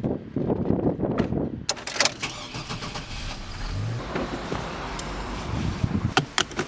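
Car sounds: gusty rumbling at first, then sharp clicks about two seconds in, followed by a car engine starting and running steadily, with a few more clicks near the end.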